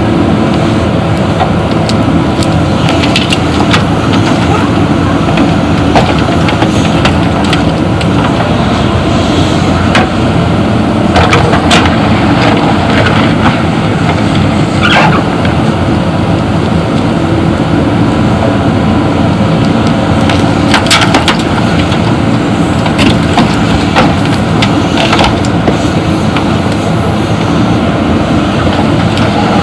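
JCB backhoe loader's diesel engine running steadily under load, with scattered knocks and clatter as gravel is worked and loaded.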